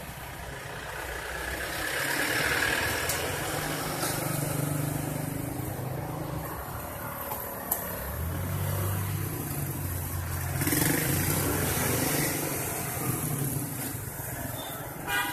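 Street traffic, with motorbike and car engines passing and swelling up twice. A single sharp click comes about eight seconds in.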